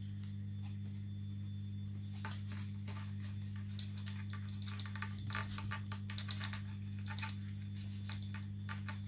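Light, scattered clicks and taps of fingers working a carbon fibre rod into the crease of a foam model-glider wing, bunched in the middle, over a steady low hum.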